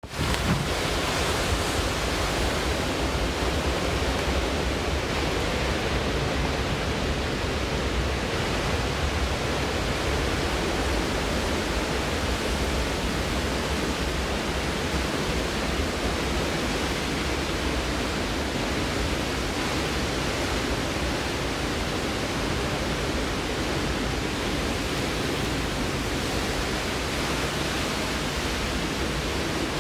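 Hurricane-force wind and driving rain in a hurricane's eyewall: a steady, unbroken rushing noise with a low rumble underneath.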